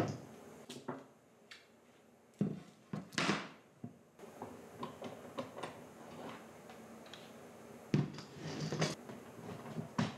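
Steel bar clamps being handled on an oak slab: jaws scraping as they slide along their bars, small clicks and clanks, and heavy knocks a little past two seconds in and near eight seconds.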